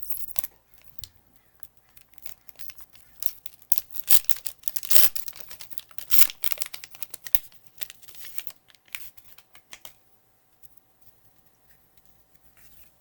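Magic: The Gathering Foundations Collector Booster pack wrapper being torn open, a run of sharp crinkling and ripping rustles with the loudest rips about four to six seconds in. The rustling dies away about ten seconds in.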